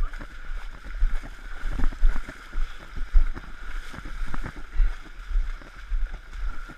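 A runner wading and running through knee-deep muddy water, a splash and a dull thump with each stride in a steady rhythm.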